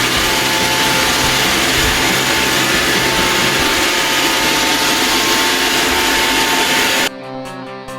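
Roomba robot vacuum cleaning: a loud, steady motor rush with a faint steady whine. It cuts off abruptly about seven seconds in, when guitar music starts.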